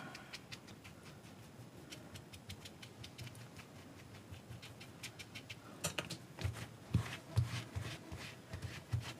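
Faint scratching and tapping as paint is dabbed on and rubbed off the staff prop, with a run of louder soft knocks in the second half as the staff is handled.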